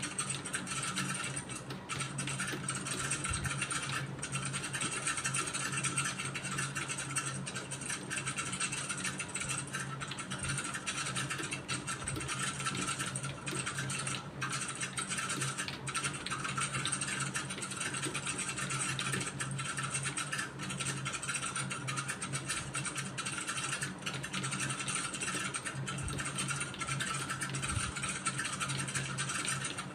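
Computer keyboard typing: a continuous clatter of keystrokes at a steady test-taking pace, over a faint steady low hum.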